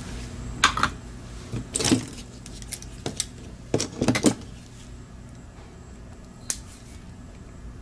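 A handful of short, sharp plastic clicks and taps from a mouse's small switch circuit board being handled and worked on while its click switches are removed, bunched in the first half with one last tap near the end, over a low steady hum.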